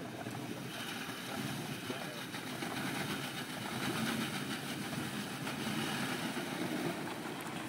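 Jeep Wrangler's engine running steadily as the Jeep wades slowly through water up to its doors.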